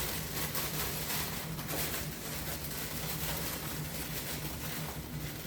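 Light rustling and handling of packaging and items during unboxing, over a steady low hum.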